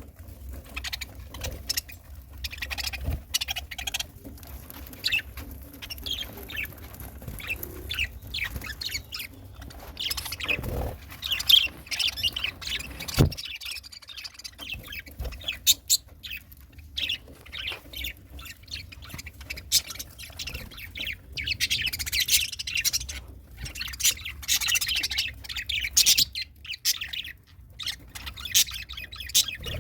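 Pet budgerigars chirping and warbling, with many short high chirps throughout and a busier, louder stretch of chatter about two thirds of the way in. Scattered sharp clicks sound among the calls, one strong click near the middle.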